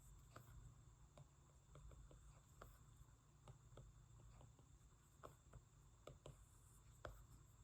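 Near silence: faint, irregular taps of a stylus on a tablet screen over a low steady hum.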